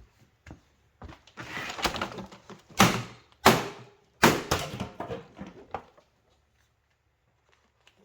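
Hand tools knocking and clattering against the plastic vacuum-cleaner housing as it is worked apart: a run of knocks and rattles with three loud thuds a little under three, at three and a half, and a little over four seconds in, stopping about six seconds in.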